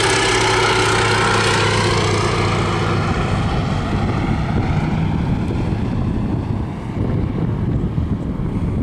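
Fairey Swordfish biplane's Bristol Pegasus radial engine droning past on a flypast, its pitch falling as it goes by, then fading into a rougher rumble with wind on the microphone.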